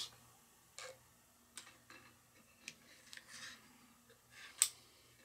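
Long needle-nose pliers clicking and scraping lightly against the metal inside a Singer 281-1 sewing machine head while pulling a new felt oil wick through. Scattered faint ticks and scrapes, the sharpest click about four and a half seconds in.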